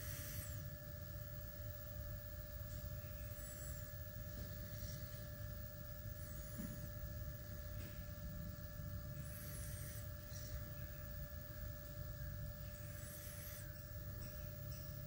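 Faint steady electrical hum, several steady tones over a low rumble, with a few faint, brief high-pitched sounds now and then.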